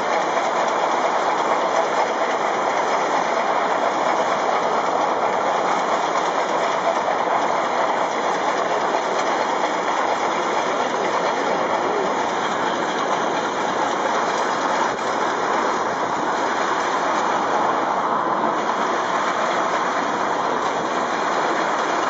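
Stanier 8F 2-8-0 steam locomotive 48151 running at speed, heard from a vehicle pacing it as a steady rushing noise with no distinct exhaust beat, mixed with wind and road noise.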